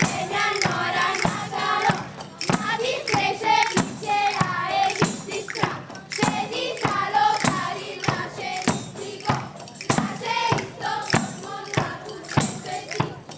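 Live folk song: voices singing over a steady beat on a hand frame drum.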